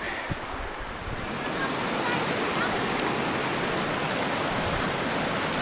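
Shallow brook running over rocks, a steady rushing babble that grows a little louder over the first two seconds and then holds.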